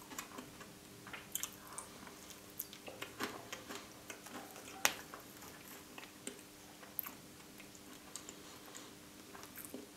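Close-miked chewing and soft wet mouth sounds of eating a creamy chocolate truffle dessert topped with whipped cream, with a few sharper clicks in the middle.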